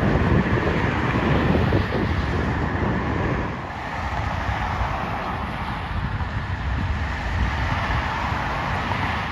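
Wind buffeting the microphone outdoors: a loud, uneven rumble and hiss that eases a little about three and a half seconds in.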